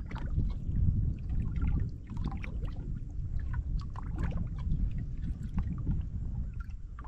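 Low, uneven rumble of wind and water around a fishing boat on open water, with scattered light clicks and ticks.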